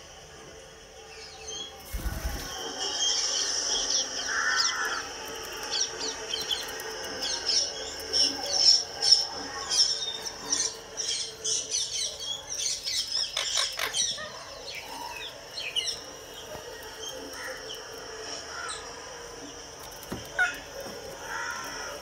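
Indian ringneck parakeets calling in rapid strings of short, high-pitched chirps and squawks, busiest in the first half and sparser later. A single thump comes about two seconds in.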